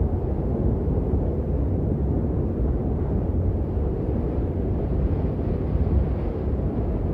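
Wind blowing, a steady deep rumble with no gusts standing out.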